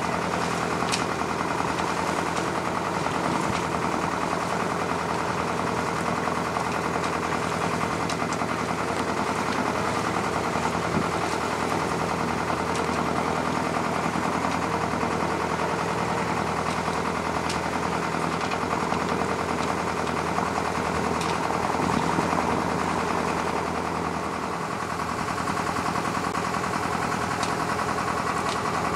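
A sailing yacht's inboard engine running steadily at low speed while the boat motors along, with a rapid, even knocking beat.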